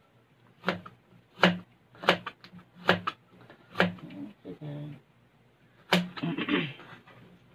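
Cleaver chopping through a carrot onto a plastic cutting board: about six sharp knocks, unevenly spaced, with a gap near the middle.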